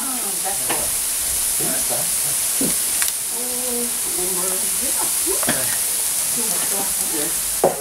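Socca batter sizzling in its round metal pan inside a wood-fired oven, a steady hiss, with sharp crackles from the burning wood about three seconds in and again near the end.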